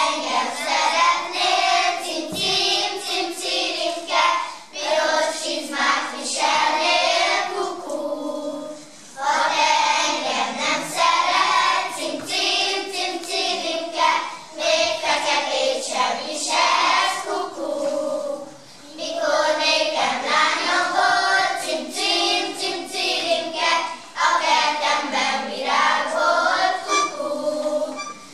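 A group of young children singing a folk song together in unison, unaccompanied, in phrases of a few seconds with short breaths between them.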